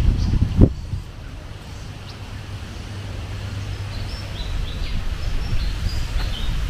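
Outdoor ambience: wind rumbling on the microphone, two thumps about half a second apart at the start, and a few short, high bird chirps in the second half.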